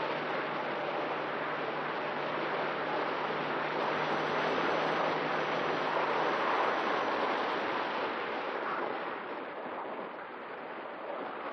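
Steady rushing air and propeller noise picked up by the onboard camera of a fast-flying FPV drone, with a faint hum that drops out about six seconds in. The noise eases a little near the end.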